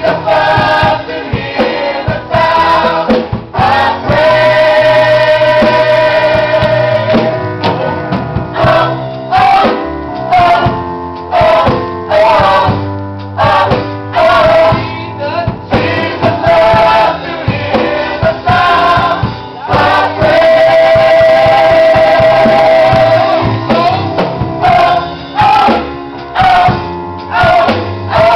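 Gospel choir singing with band accompaniment, a bass line and a steady beat under the voices. The choir holds long chords twice, a few seconds in and again about two-thirds of the way through.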